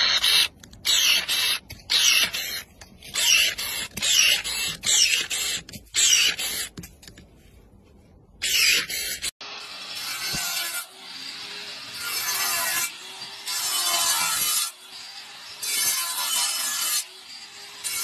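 Cordless electric pruning shears snipping through branches: a string of short, sharp cutting bursts every half second to a second, then a pause and one more. About nine seconds in, an angle grinder takes over, running steadily and swelling louder every two seconds or so as its disc cuts grooves into a stone paver.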